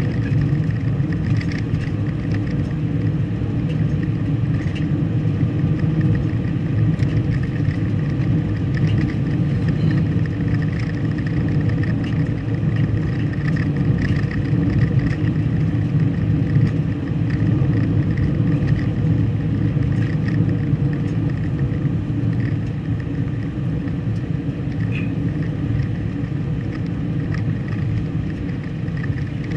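A car driving steadily: continuous engine and road noise, with a few faint clicks.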